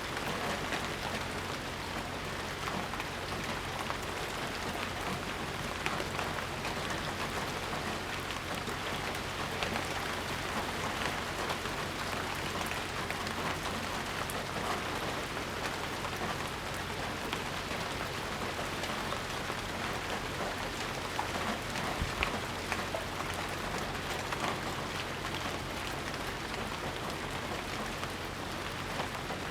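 Steady rain falling and pattering on surfaces, an even hiss with many small drop ticks and a few louder drips; no thunder.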